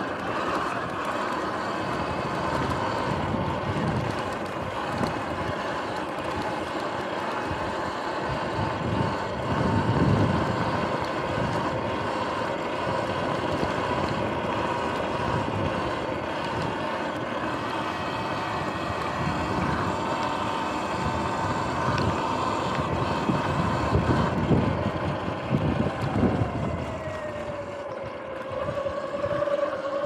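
Electric dirt bike running along a sandy trail: a steady motor whine over tyre rumble and wind on the microphone, with low thumps from bumps about ten seconds in and again near the end. Near the end the whine glides down in pitch as the bike slows.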